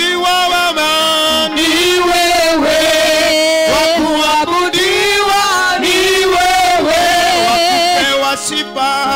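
A man singing a slow worship chant into a microphone, with long, wavering held notes. Near the end the voice drops back, leaving steady held tones.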